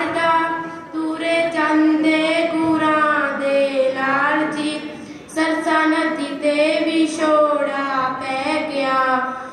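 A girl's solo voice chanting a Punjabi devotional poem in a sung melody, with held notes and short pauses between lines.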